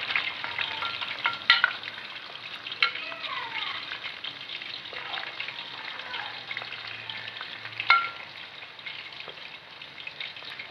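Chicken keema pakoras deep-frying in hot oil in a steel karahi: a steady crackling sizzle as a steel ladle turns them. A few sharp clinks of the ladle against the pan stand out, the loudest about a second and a half in and again near eight seconds.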